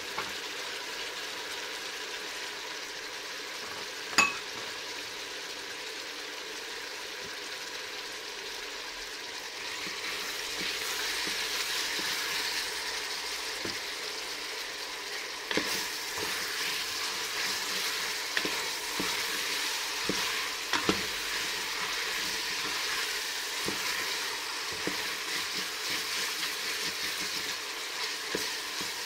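Cuttlefish and vegetables sizzling in olive oil in a stainless steel pot, the frying growing louder about ten seconds in. From about halfway on, a wooden spoon stirring knocks lightly against the pot.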